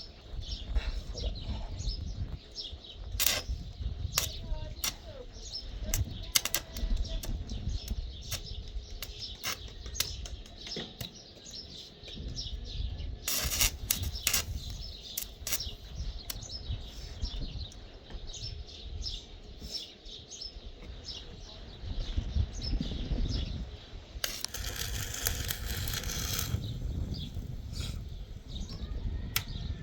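Electric arc welding: irregular crackling with sharp pops, and a steady hiss for about two seconds near the end.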